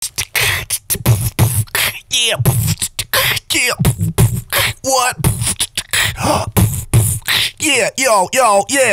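Human beatboxing: a steady beat of vocal kick-drum thumps and snare and hi-hat clicks made with the mouth. Sliding vocal tones are laid over the beat from about two seconds in, and they come more often near the end.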